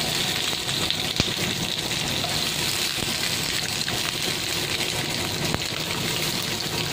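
Sliced white onion and ginger frying in hot oil in a wok, a steady sizzling hiss, with a single sharp click about a second in.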